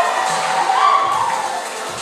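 Performance music playing while an audience cheers and shouts, the cheering dying down toward the end.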